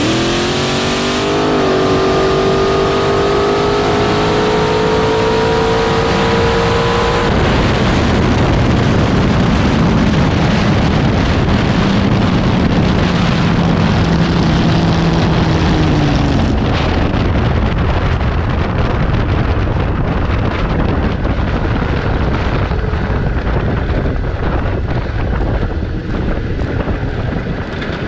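Front-engine dragster's V8 launching at full throttle, its pitch climbing steadily through the run, then cut off sharply about seven seconds in. After that, wind rush on the onboard microphone as the car coasts down the shutdown area, with a lower engine note falling for a few seconds, easing off toward the end.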